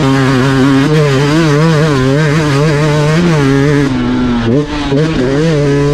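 Dirt bike engine pulling along a trail, its pitch wavering up and down with the throttle; it settles lower a little past the middle, drops briefly, then climbs again. It is heard through a GoPro fitted with a windscreen, which keeps the wind noise down.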